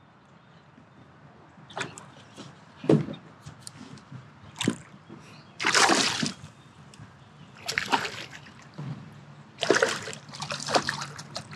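A hooked bass splashing and thrashing at the water's surface beside a kayak while being played on the line: a series of about seven sharp splashes, the longest about halfway through.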